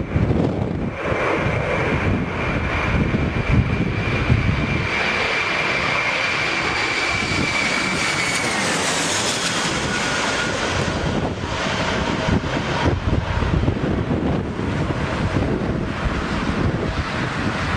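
Twin-engine jet airliner's engines whining as it flies low overhead on final approach, the whine dropping in pitch as the aircraft passes about eight to nine seconds in. Wind buffets the microphone throughout.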